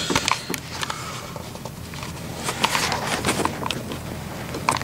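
Close-up handling noise: scattered light clicks and knocks over a low rustle, about half a dozen across the stretch.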